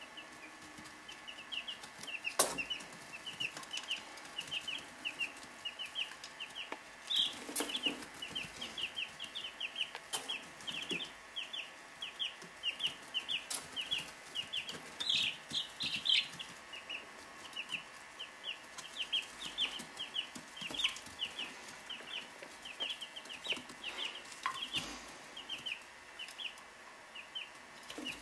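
Three-week-old chicks peeping steadily, short high peeps a few a second, with several sharp taps along the way.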